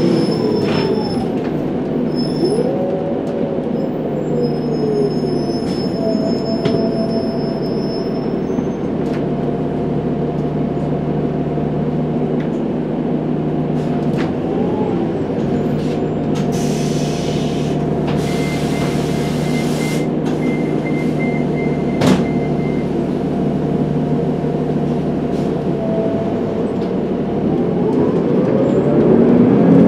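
Diesel transit bus's Cummins ISL9 engine and Allison automatic transmission running under way, the drivetrain whine dropping in pitch at the start, holding steady through the middle and climbing again near the end as the bus picks up speed. A brief hiss comes a little past halfway, and a single sharp click follows.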